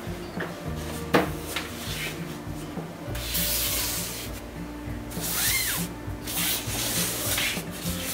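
Fabric storage boxes and folded clothes being slid and rubbed about in a drawer, in several scraping stretches, with a sharp tap about a second in. Soft background music underneath.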